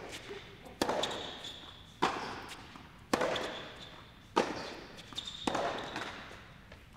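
Tennis ball struck back and forth with rackets in a rally: five sharp hits roughly every 1.2 s, each echoing in an indoor hall. The rally stops about two-thirds of the way in.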